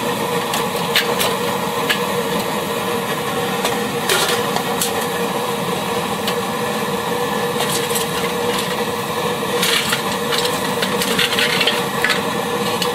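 Petrol pressure burner of an NVA field kitchen running steadily under the pots, with a constant hum. Aluminium pots and inserts knock and clatter several times as they are lifted out of the cooking well and handled.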